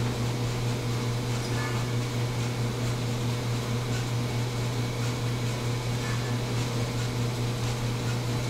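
Steady mechanical hum of a fan or motor, low and unchanging, with a faint hiss over it.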